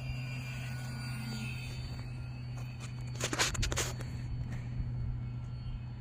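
RC model airplane's motor running steadily in flight, a thin whine drifting slightly in pitch over a steady low hum, with a short cluster of sharp clicks about halfway through.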